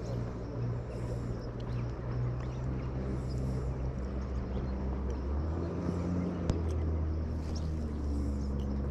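Motorboat engine running steadily on the river, its low hum dropping in pitch a little over halfway through. One sharp click sounds later on.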